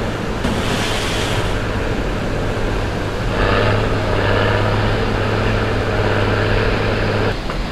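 Steady running of heavy engine-driven machinery with a constant low hum, a short hiss about a second in, stopping abruptly shortly before the end.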